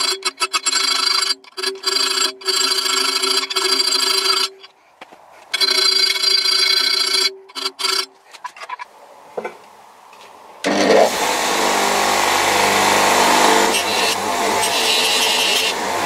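Hand file rasping across the tang shoulder of a leaf-spring steel cleaver blade clamped in a vise, the thin blade ringing under the strokes; quick short strokes, then longer ones, stopping after about eight seconds. About two-thirds of the way in, a bench grinder with a buffing wheel starts with a steady motor hum and rushing noise as the blade is polished on it.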